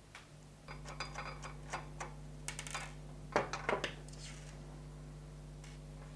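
Light metallic clicks and rattles from hands working a part loose on a metal PC case, bunched between about one and four seconds in, over a steady low hum.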